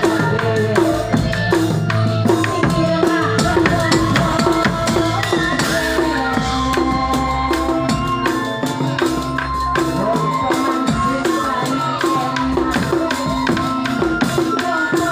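Fast drumming on a rack of large frame drums struck with a padded mallet, each stroke dropping in pitch, in a Reog-style percussion rhythm. A held tone sounds over the drumming in the middle stretch.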